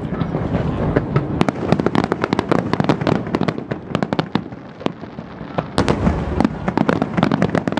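Fireworks display: a dense barrage of aerial shells bursting, many sharp bangs and cracks in quick succession over a continuous low booming. The bangs thin out briefly a little past the middle, then another fast run follows.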